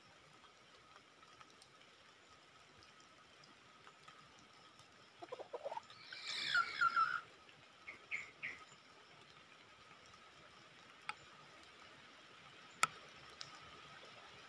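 Red junglefowl rooster crowing once about five seconds in, the crow led by a few short lower notes, with a couple of short notes a second later. A single sharp click sounds near the end.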